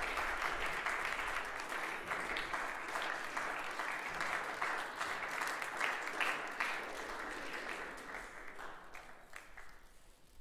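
An audience of schoolboys applauding in an assembly hall, a steady patter of many hands clapping that fades away near the end.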